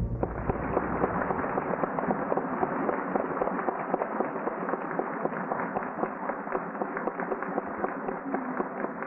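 Audience applauding just after the band stops playing: a dense, steady clatter of clapping, muffled on an old audio tape recording with little treble.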